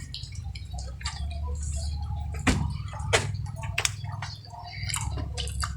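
Clam and oyster shells clicking and knocking together, about half a dozen sharp clicks, with wet eating sounds and a steady low hum underneath.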